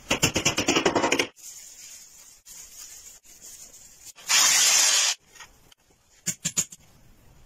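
Rapid back-and-forth rubbing strokes of a pad on a wooden box, then a loud burst of about a second of a rotary hammer drill boring into a tiled wall, then a few quick hammer knocks.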